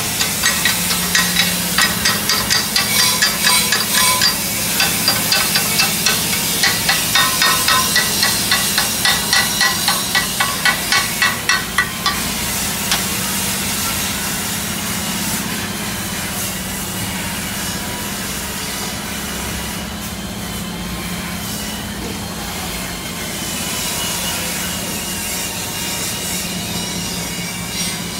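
Hand tool working on the steel frame of a truck's cargo bed: rhythmic scraping strokes, about two a second, for the first twelve seconds, then a steadier rasping noise, over a steady low hum.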